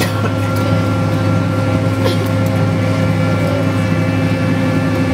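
Boeing 777-200ER's GE90 jet engines and airflow heard from inside the cabin: a steady low hum with a few steady tones above it as the airliner rolls along the ground after landing.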